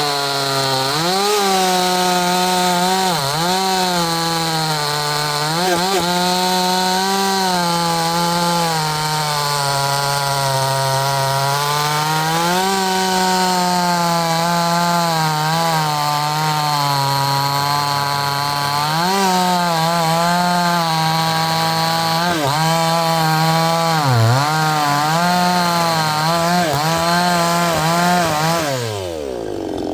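Neotec 62cc two-stroke chainsaw held at full throttle, cutting wood: the engine pitch sags repeatedly under load in the cuts and picks back up between them. Near the end the throttle is let off and the engine revs fall steeply away.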